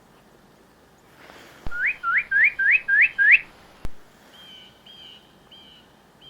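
A songbird singing a quick series of six loud, rising whistled notes, followed by a fainter run of four even whistles.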